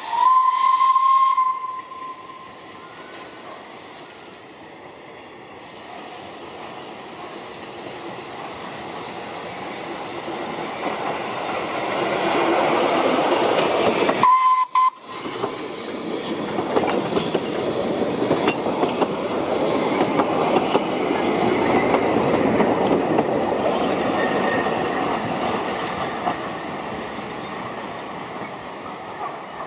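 Narrow-gauge steam locomotive whistle sounding for about two seconds, then the train approaching and running past, its noise building to a peak about halfway. A brief whistle follows, then the carriages rumble past and the sound slowly fades.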